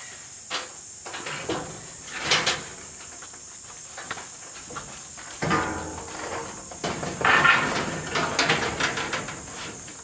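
Corrugated sheet-metal siding panel being handled and lifted into place: the thin metal sheet rattles, flexes and knocks in several bursts, the loudest a second or two after the middle. Insects chirr steadily and high behind it.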